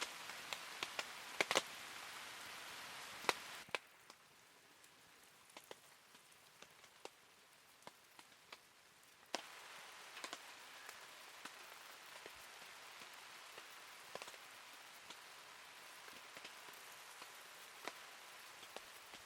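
Rain falling, with scattered drops tapping sharply on a surface over a steady hiss. The hiss drops in level about four seconds in and comes back up a little after nine seconds.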